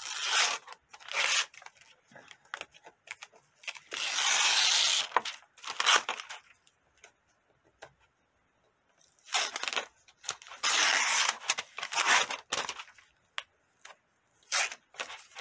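Paper release liner being peeled and torn off a hooped Floriani Perfect Stick wash-away peel-and-stick embroidery stabilizer, in a series of short rips with quiet gaps, the longest rip about four seconds in.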